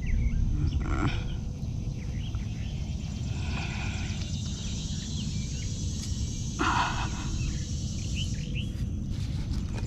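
Outdoor ambience: a steady low rumble on the microphone, with birds chirping and a high insect buzz that sets in a few seconds in. A brief rustle comes about two-thirds of the way through.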